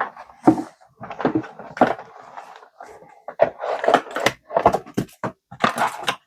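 Contents of a cardboard trading-card box being handled and taken out: irregular rustling and crinkling, with light knocks and scrapes.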